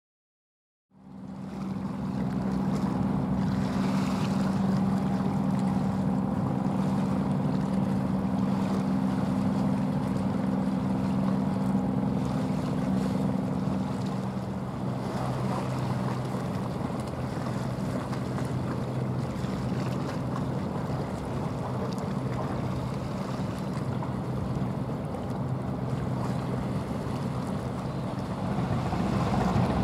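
Steady low engine drone of a small coastal cargo ship passing close, over water rushing at its bow and wind on the microphone. It starts about a second in, and about halfway through the hum drops to a lower pitch.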